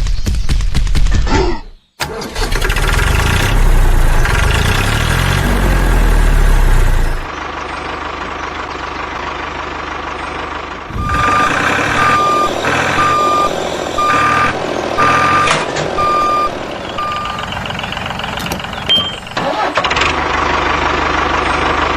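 Vehicle engine running, in several spliced sections with sudden cuts between them. Midway there is a run of about seven evenly spaced reversing beeps, one every second or so.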